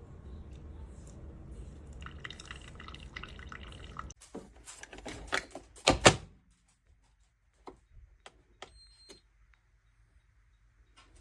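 Single-serve coffee maker brewing, a steady low running noise with liquid dripping, which cuts off about four seconds in. A few clunks of handling follow, the loudest about six seconds in, then light clicks and a brief faint high beep.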